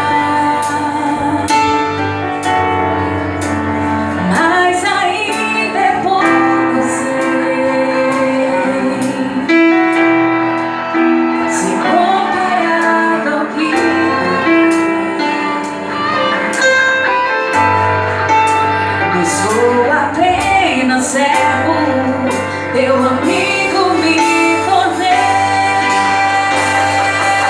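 A worship song in Portuguese sung by a gospel vocal group, led by female voices, with instrumental accompaniment that includes guitar and bass.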